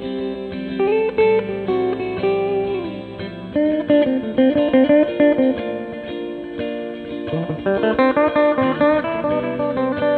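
PRS Hollowbody II electric guitar played through boost and delay pedals into an amplifier: a melodic lead line of held, ringing notes, turning to quicker picked notes about three and a half seconds in.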